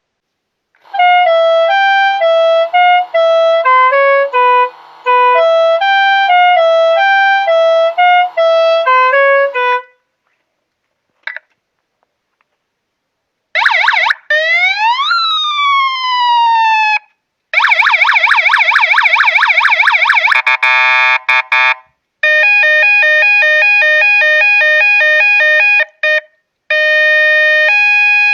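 Multi-sound musical motorcycle horn playing a tune of stepped electronic tones for about nine seconds. After a short pause it cycles through siren sounds: falling wails, a fast warble, then alternating two-tone patterns.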